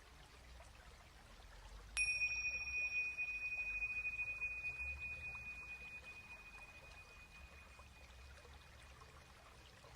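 A small metal chime struck once about two seconds in, ringing one clear high tone that slowly fades away over about six seconds.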